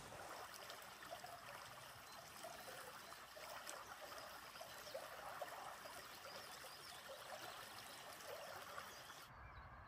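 Faint, steady rushing noise outdoors, with no distinct events; the sound changes shortly before the end, losing its hiss and gaining a low rumble.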